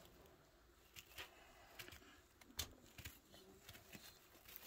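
Near silence, with faint rustling and a few light clicks from wood-shaving bedding as a baby chinchilla moves about in it and a hand shifts among the shavings; the sharpest click comes about halfway through.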